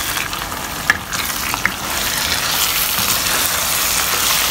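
Minced goat meat (mutton keema) in thick sauce sizzling in a pan as it is stirred with a spatula, with two short sharp clicks in the first two seconds. The sizzle gets louder after about two seconds. The mince is cooked through and nicely browned.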